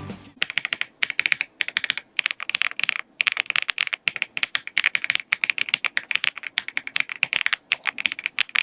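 Typing on a mechanical keyboard fitted with JDA-profile keycaps: quick runs of key clicks broken by short pauses of about a second.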